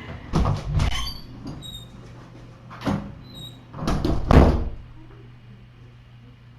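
Squeaks and several knocks, like a door or cupboard being opened and shut, the loudest knock about four seconds in.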